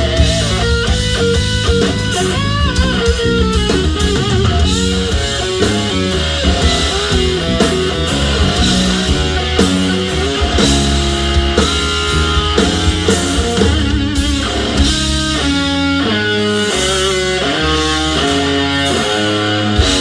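Blues-rock band playing an instrumental passage: electric guitar lead with bending, wavering notes over bass and drums with cymbals.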